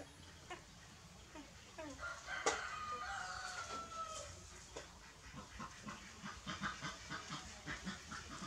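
A rooster crows once, a drawn-out call of about two seconds, a couple of seconds in. Over the last few seconds come soft, quick smacking ticks of puppies suckling at their mother's teats.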